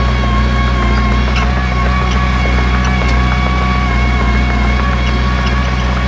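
Diesel engine of a small Komatsu crawler bulldozer running steadily under a constant throttle, with a thin high whine above the low engine note and faint light clicks.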